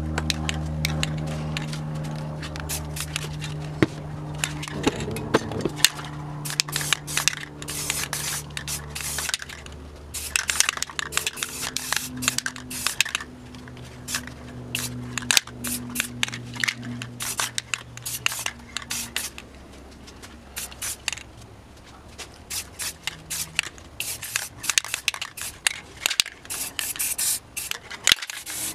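Aerosol spray paint can sprayed in many short, quick bursts of hiss, dabbing white paint along the edge of a torn-paper mask to build up clouds.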